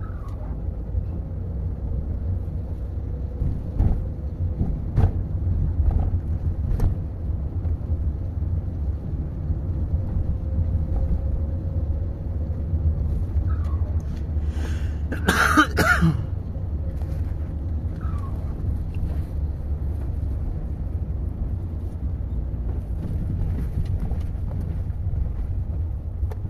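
A car driving, heard as a steady low rumble, with a few light knocks early on and one short, loud burst of noise about halfway through.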